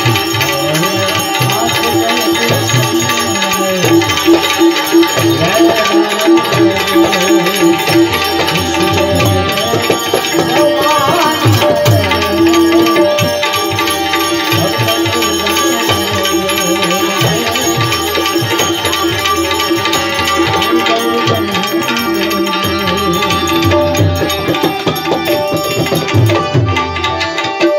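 Instrumental Indian folk music: tabla played continuously, its bass drum strokes sliding in pitch, under a steady melody from a benjo (Indian banjo) with manjira hand cymbals. A quick run of repeated notes comes about four seconds in.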